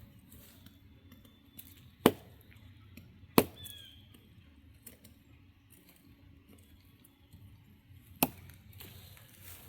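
Three sharp knocks, two a little over a second apart and a third about five seconds later.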